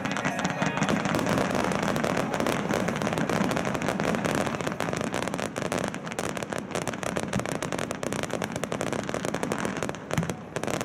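Starmine fireworks barrage: a rapid, dense succession of shell launches and bursts, with many bangs and crackles close together, thinning out slightly near the end.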